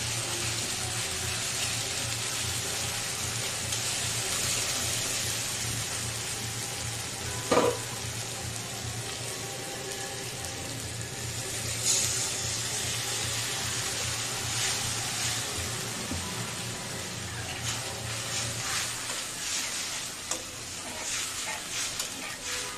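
Onions and ginger-garlic paste sizzling in hot oil in an aluminium karahi, stirred with a metal spatula. There is a single metallic clank about seven seconds in. About twelve seconds in, water is poured into the pan with a burst of hissing, and the spatula scrapes and clicks against the pan near the end.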